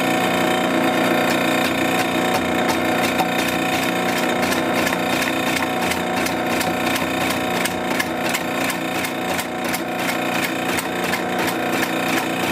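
A metal lathe turning a 16-inch block of wood while a boring bar cuts its inner diameter. The machine's steady whine runs under the scraping of the cut, with regular ticks that come faster after the first few seconds.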